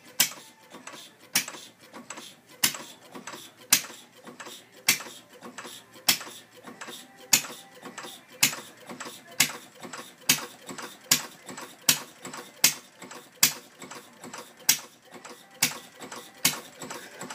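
Working replica of Henry Ford's 1893 first engine, a single-cylinder gasoline engine sparked by a Model T buzz coil, puttering slowly with one sharp firing pop about every second. The pops come a little faster after about eight seconds.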